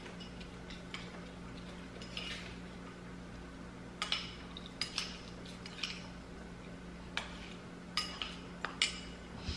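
Metal spoon stirring in a small ceramic bowl, its edge clinking against the bowl in a run of light, irregular clinks that start about four seconds in.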